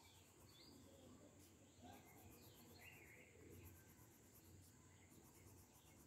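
Near silence: faint room tone with a few faint, short chirps, like distant birds.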